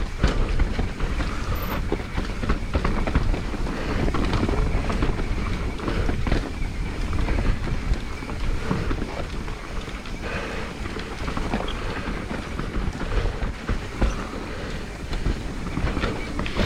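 Mountain bike descending a rough dirt trail: tyres rumbling over dirt and rocks and the bike rattling and knocking over bumps, with wind buffeting the microphone.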